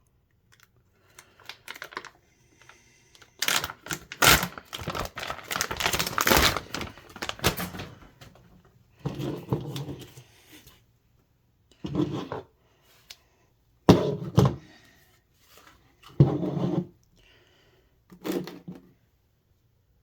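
Packaging of a 3D-printer filament spool being handled: a few seconds of crinkling and rustling, then four separate knocks.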